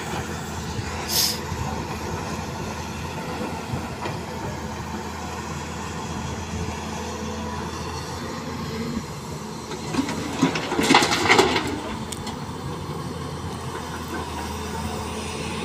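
Volvo crawler excavator's diesel engine running steadily under work. About ten seconds in, rocks and dirt clatter loudly into the steel tipper body. A brief hiss comes about a second in.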